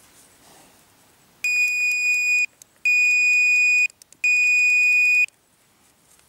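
Minelab Pro-Find 25 pinpointer giving three steady, high-pitched electronic beeps about a second long each, separated by short gaps, with faint clicks between them.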